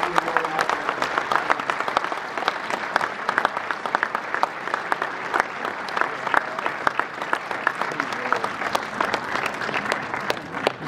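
Audience applauding: many hands clapping in a dense, steady patter that eases slightly toward the end.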